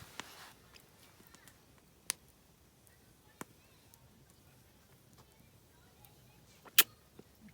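A few isolated sharp clicks against a quiet background, spaced a second or more apart, the loudest about seven seconds in.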